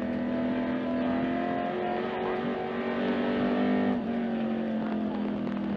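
Race car engine running hard on track, heard from inside the cockpit. The revs dip briefly about four seconds in and climb again.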